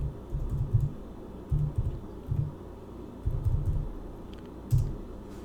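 Typing on a computer keyboard in short irregular runs of keystrokes, heard mostly as dull thuds, with pauses between the runs.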